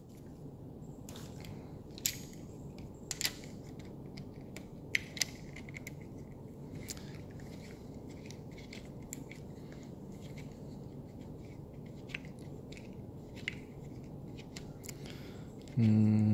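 Scattered small metallic clicks and scrapes of a folding hex-key set being handled and worked in the bolt of an archery stabilizer quick disconnect, loosening a thick bolt, over a steady low hum. A short voice sound comes near the end.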